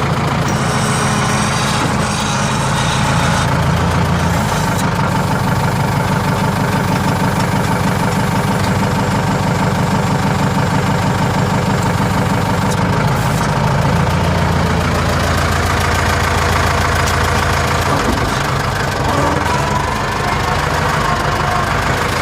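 Hürlimann H-470 tractor's diesel engine running steadily under load while ploughing; its note shifts a couple of times.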